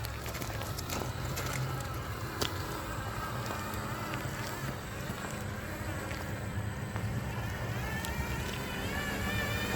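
Electric motor and gears of an RC scale truck whining as it drives, the pitch wavering with the throttle and climbing near the end, with a few sharp clicks.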